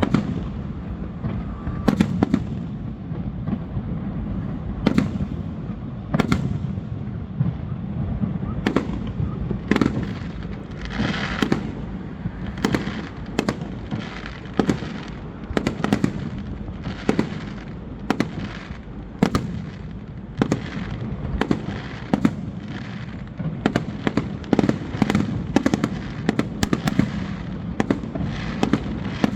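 Aerial fireworks display: shells bursting in an irregular, rapid succession of sharp bangs over a continuous low rumble of echoing booms, with crackling trails sounding from about a third of the way in.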